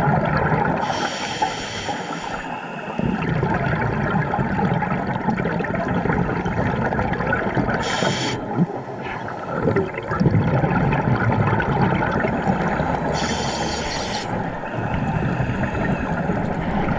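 Scuba diver's regulator breathing underwater: three hissing inhales about five seconds apart, with the bubbling of exhaled air between them.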